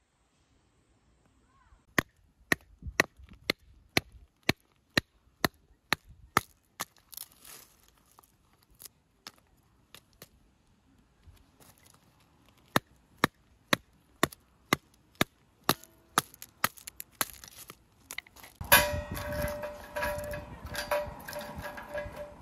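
Batoning kindling: a piece of wood strikes the spine of a fixed-blade knife driven through a stick of firewood, sharp knocks about two a second in two runs with a pause between. Near the end a louder, continuous sound with steady held tones takes over.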